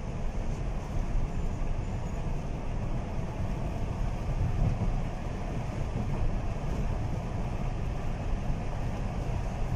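Steady low rumble of a car driving along a city road, heard from inside the cabin: engine and tyre noise.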